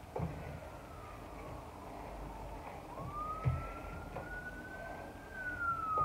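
An emergency vehicle's siren wailing, a single tone that slowly falls, rises again about three seconds in, and starts to fall near the end. Two dull thuds of feet landing on an exercise mat, the first just after the start and the second about halfway through, are the loudest sounds.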